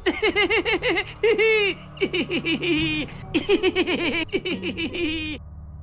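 High-pitched giggling from a cartoon boy character: several runs of quick, short laughs that break off shortly before the end.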